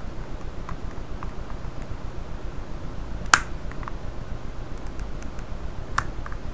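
LG G2's plastic back cover snapping and clicking as a plastic pry tool runs along its edge: a sharp snap about three seconds in and another near the end, with fainter ticks between, as the cover's retaining clips release from the phone body.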